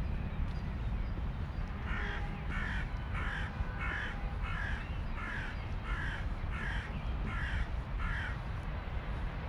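A crow cawing in a regular run of about ten caws, a little over half a second apart, starting about two seconds in and stopping near the end. A steady low rumble runs underneath.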